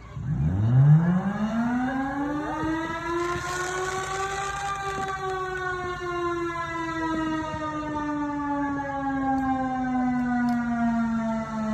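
Federal Enterprises Thunderbolt 1000 siren on a very short alert: it winds up steeply for about four seconds, then slowly winds down, over a steady low hum.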